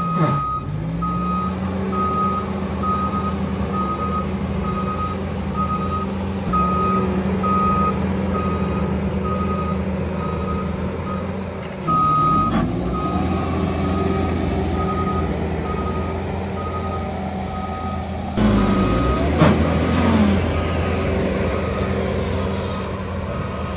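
Skid-steer loader's diesel engine running under load, its pitch dipping and recovering a few times as the hydraulic rotor attachment works heavy wet soil. The machine's reversing alarm beeps steadily, about one and a half beeps a second.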